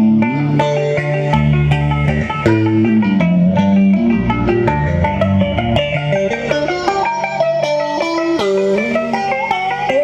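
Instrumental interlude of a Vietnamese song's accompaniment: an electric guitar plays a melody of plucked notes, some sliding in pitch, over bass notes.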